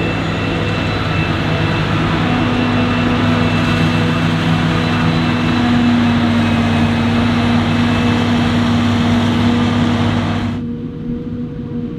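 Heavy diesel farm machinery of a maize silage harvest, forage harvester and tractors, running loudly with a steady drone and dense hiss. About ten and a half seconds in, the hiss cuts off abruptly, leaving a quieter, lower engine hum.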